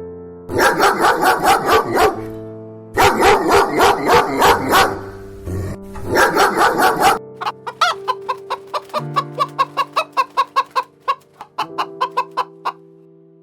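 Chickens clucking in three loud bursts of rapid calls over background music with steady held notes. The second half holds the music alone, a run of short repeated notes.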